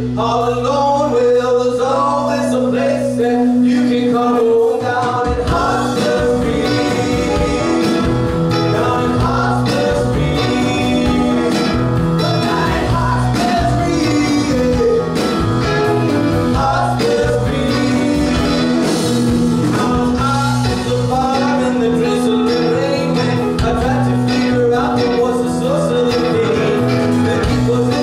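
Live rock band playing: a man singing over acoustic and electric guitars, bass and drums. The band's sound fills out in the low end about five seconds in.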